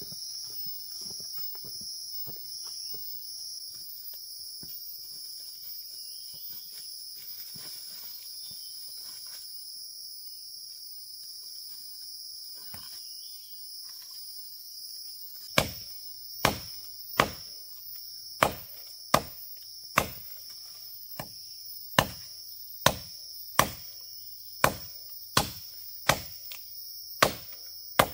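Steady high chorus of forest insects, with faint scattered ticks and rustles. About halfway through, chopping starts: sharp, even blows a little more than one a second.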